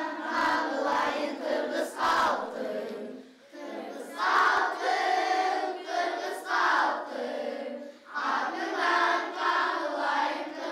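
A class of schoolchildren singing together in chorus, in three long phrases with short breaks between them.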